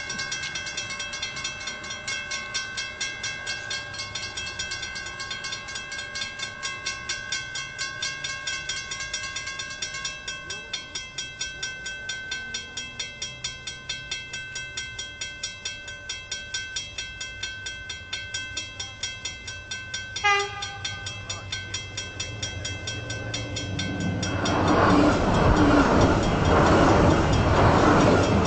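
Level crossing warning bell ringing in steady rapid strokes. About twenty seconds in, a CityRail Tangara electric train sounds a short horn blast. A few seconds later it passes close by, loud, drowning the bell.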